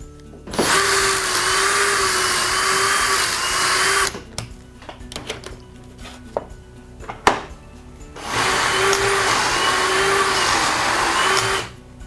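Drill boring two pocket holes through a Triton T6 pocket hole jig, running in two bursts of about three and a half seconds each. Between the bursts come clicks and knocks as the workpiece is unclamped, slid along and reclamped.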